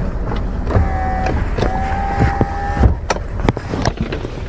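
Car power window motor whining as the driver's side window is run up, in two pushes: a short run about a second in, then a longer one of over a second. A few light clicks and knocks come with it.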